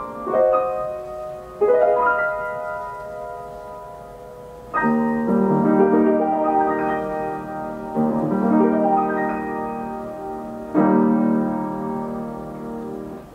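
Steinway Model S grand piano playing itself from a roll through its Ampico B reproducing mechanism: five slow sustained chords, each struck and left to ring and fade, the last one dying away as the piece ends.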